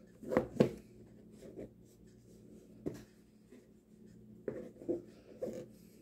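Soft rustling and a few light knocks of handling as a clip-on flashlight is worked into a trouser pocket: two just after the start, one in the middle and a short cluster near the end.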